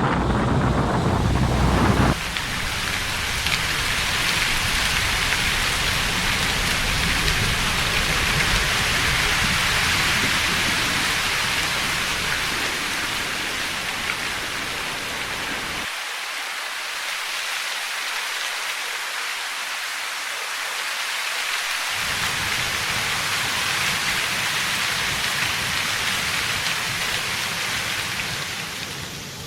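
Waterfall's falling water making a steady rushing noise. The deep rumble underneath drops away for several seconds past the middle, then returns.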